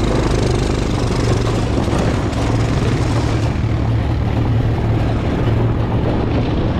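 A motor vehicle's engine running steadily under way, a low drone with road and wind noise over it.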